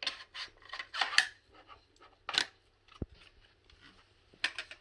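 Hard plastic clicks, taps and rattles from a Shark vacuum's crevice tool being handled and clipped onto the wand. It comes as a handful of separate knocks, loudest about a second in and again about two and a half seconds in.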